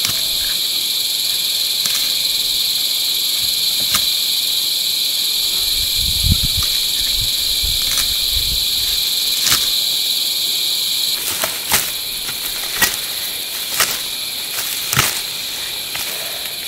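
Steady, shrill, unbroken chorus of insects, crickets by the sound. From about two-thirds of the way in, a few sharp clicks and crackles come through.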